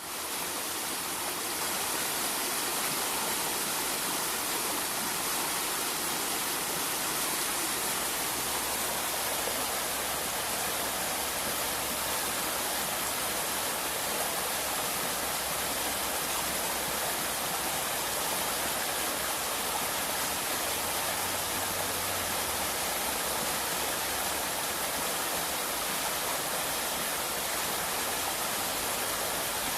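River water rushing steadily, a constant even roar with no breaks.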